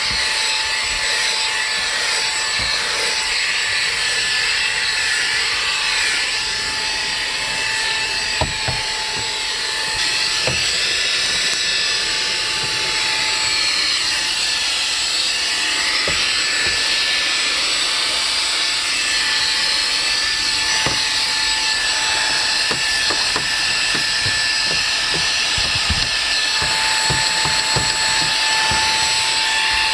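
The Xiaomi Mijia SSXCQ01XY handheld vacuum's brushless motor running, a steady high-pitched whine with a hissing rush of air. Occasional short knocks and clicks come through as it is handled and moved.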